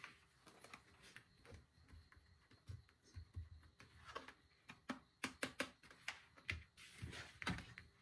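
Faint handling noises: irregular light clicks and rustles, sparse at first, then coming thick and fast in the second half, with a longer rustle near the end.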